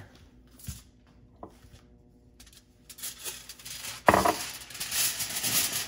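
Aluminium foil crinkling and crackling as it is folded and wrapped around a piece of meat, starting about three seconds in and loudest about a second later, after a quiet stretch with a few light clicks.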